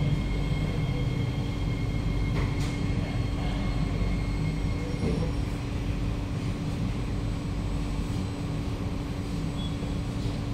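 Interior sound of a Kawasaki–CRRC Sifang C151A MRT train pulling into a station platform and slowing: a steady low running rumble with a held hum. A high thin whine fades out about four seconds in.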